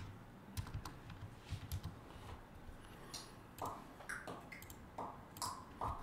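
Computer keyboard typing: light, irregular key clicks as numbers are keyed into a calculator.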